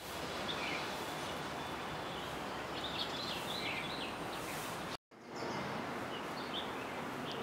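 Steady outdoor background noise with a few faint bird chirps. The sound cuts out abruptly for a moment about five seconds in.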